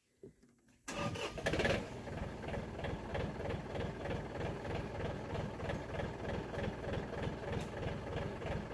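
Small three-cylinder diesel engine of a John Deere 4200 compact tractor comes in about a second in, briefly louder, then settles into a steady, evenly pulsing idle.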